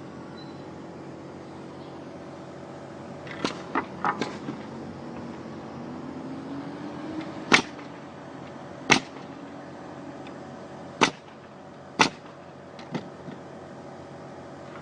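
A series of about nine sharp knocks at irregular intervals, the loudest ones in the middle and later part, over a steady low hum that rises in pitch briefly before the loudest knock.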